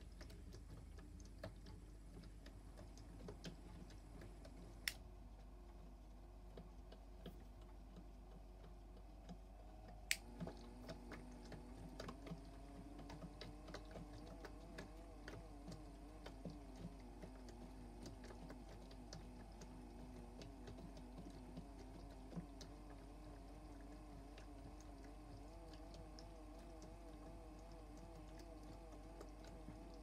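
Faint whir of a toy washing machine's small drum motor, its pitch wavering, with many light ticks. A sharp click comes about five seconds in and another about ten seconds in, when the motor starts up again with a slowly rising whir.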